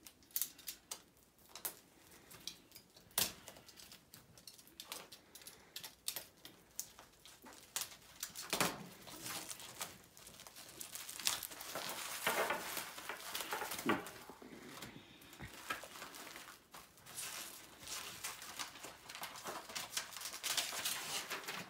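Stiff plastic Mylar comic bags and their packaging being handled: crinkling and rustling with many short clicks and taps, and a box cutter slitting the packaging at the start. The crinkling is densest about twelve seconds in and again near the end, as a comic is slid into a bag.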